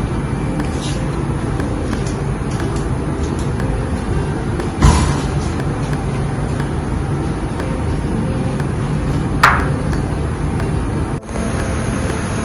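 Steady low rumble with two sharp, loud knocks, one about five seconds in and one about nine and a half seconds in.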